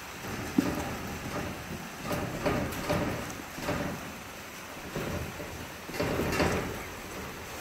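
A donkey rooting and munching in a rubber tub of hay, heard as a series of irregular rustling, crunching bursts, the strongest about half a second in and near the end. Under it, a steady hiss of rain.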